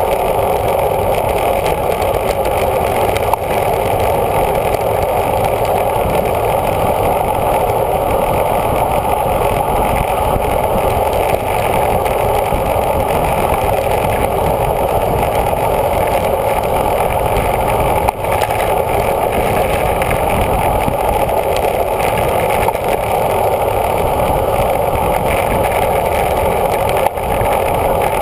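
Loud, steady wind rush over a bicycle-mounted camera's microphone on a fast descent at over 30 mph.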